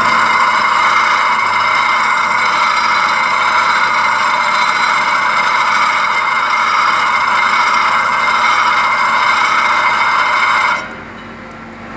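Oil pump cover face held by hand against a spinning grinding wheel: a loud, steady grinding hiss that cuts off suddenly near the end as the part comes off the wheel, over the steady hum of the grinder. The worn pump face is being ground flat to take out the last wear lines and restore its clearance.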